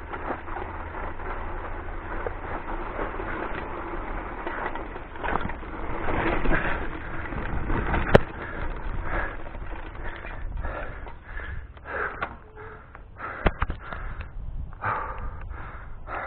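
Yellow Forever hardtail mountain bike riding fast down a rough dirt trail: tyres crunching over dirt and gravel and the bike rattling over bumps, with a low wind rumble on the camera microphone. Sharp knocks come about eight seconds in and several times near the end.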